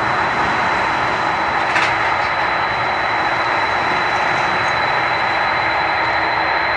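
Boeing 747's four jet engines running at low taxi power as the jet rolls slowly: a steady rushing hiss with a high whine held on one pitch.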